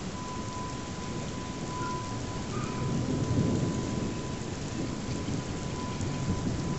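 Rumbling noise of a passing thunderstorm, swelling about three seconds in.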